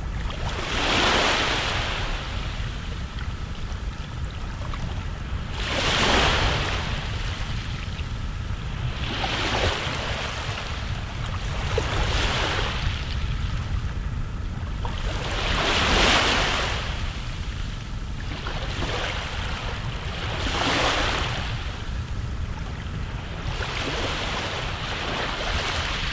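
Sea waves breaking and washing in, a swell of surf every two to five seconds, over a steady low rumble.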